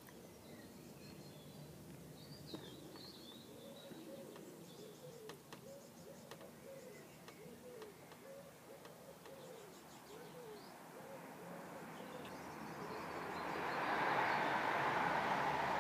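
Soft, low dove-like cooing repeated about twice a second, with a few high bird chirps around three seconds in. Over the last few seconds a steady rushing noise of a passing vehicle builds up and drowns it out.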